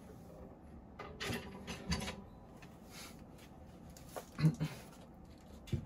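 Acoustic guitar being handled and lifted: rubbing of the wooden body against clothing, with a few soft knocks, the loudest a low thud about four and a half seconds in.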